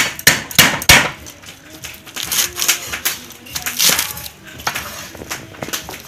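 Cleaver chopping and slicing fresh lemongrass stalks on a wooden chopping board: several sharp knocks in the first second, then lighter, irregular crunching cuts through the fibrous stalks.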